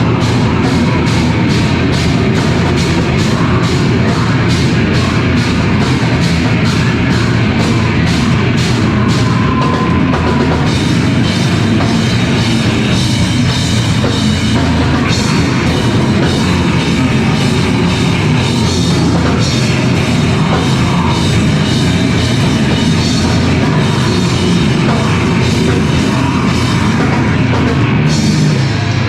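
Live rock band playing loud, heavy music on drum kit and guitars. For about the first ten seconds the drums hit evenly at roughly two and a half strikes a second, then the cymbals fill in to a dense wash.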